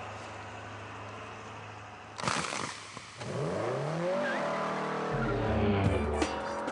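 A sudden loud rush of noise about two seconds in, then a race car engine revving, its pitch rising and falling before it settles into a louder steady run near the end.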